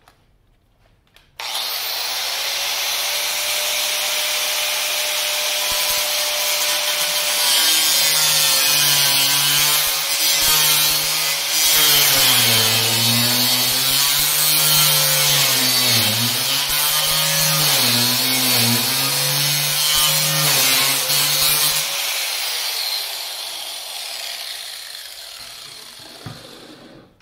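Makita angle grinder starting up about a second in and grinding through a rusted steel weld-on nut; its whine sags and wavers in pitch as the disc bites under load. Near the end it is switched off and winds down, falling in pitch.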